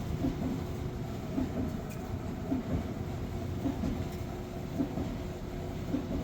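LG clothes dryer running: a steady motor and drum rumble with a faint hum, and a soft knock that comes back about once a second as the drum turns.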